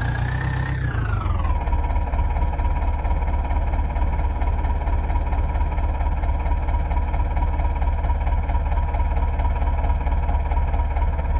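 Tractor diesel engine running with a steady whine that follows engine speed; it revs up and drops back to a steady speed in the first second or two, then holds steady.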